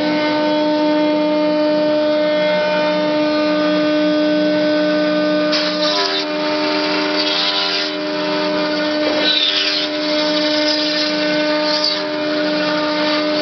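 4-axis CNC router's spindle running with a steady whine while its long bit carves a foam block. Several short bursts of cutting noise come through in the middle, and a second tone comes and goes.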